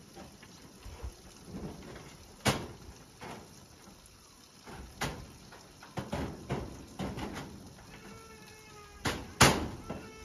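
Irregular wooden knocks and bumps from feet and hands on a wooden ladder and plank building, with two sharp knocks, one early and a louder one near the end. A drawn-out animal call sounds about eight seconds in.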